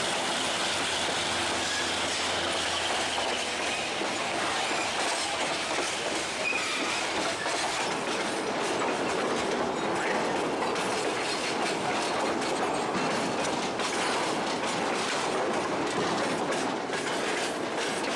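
Freight train wagons rolling over a railway bridge: a steady rumble, with the wheels clattering over the rail joints and now and then a short wheel squeal. The clatter grows denser in the second half.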